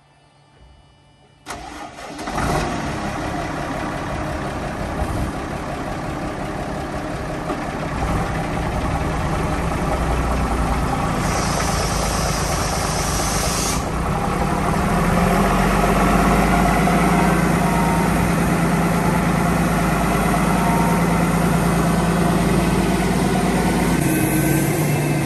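JCB Fastrac 1135 tractor's diesel engine starting about a second and a half in, then running steadily, its revs stepping up twice. A brief high hiss joins for a couple of seconds near the middle.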